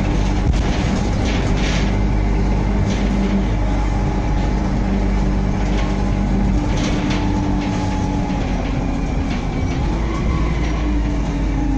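Inside a DAF SB120 Wright Cadet single-deck bus on the move: the engine drones steadily under road noise, with scattered rattles and clicks from the body and fittings. Near the end the engine note drops slightly as the bus eases off.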